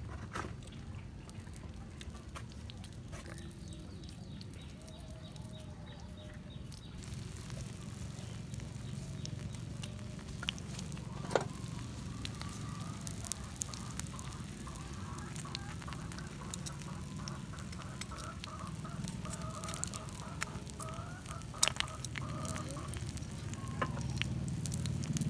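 Wood fire crackling, with scattered sharp pops, under a cooking rock. Fowl call in the background from about five seconds in.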